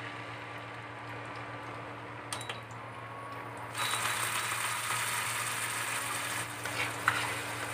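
Chilli and tomato paste sizzling and bubbling in hot oil in a nonstick frying pan, the sizzle growing louder about four seconds in, over a steady low hum.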